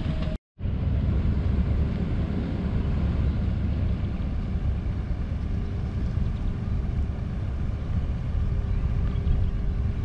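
Narrow-gauge diesel locomotive running as it draws near with its coaches: a steady low rumble, joined about halfway through by a faint steady hum. A brief moment of silence cuts in about half a second in.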